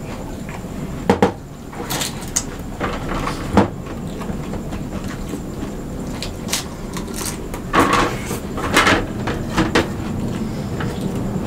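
Plates, bowls and a drinking glass knocking on a wooden tabletop while two people eat by hand: scattered sharp clacks, one about a second in, another a few seconds later and a cluster past the middle, over steady room noise.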